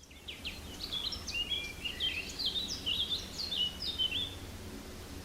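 A songbird singing a rapid run of short high chirps, each sliding down in pitch, for about four seconds before stopping. A low steady rumble sits underneath.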